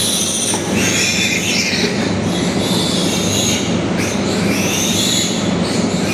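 Piglets squealing, shrill overlapping screams one after another without a break: the distress squealing of piglets handled for teeth clipping.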